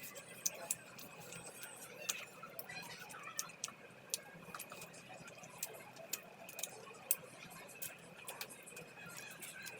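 Chewing and mouth smacks while eating puri with chicken curry by hand: irregular wet clicks, several a second, over a faint steady high tone.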